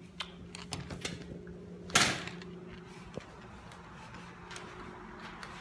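Light rustles and clicks from a plastic trash bag being carried, over a steady low hum, with one louder sudden noise about two seconds in.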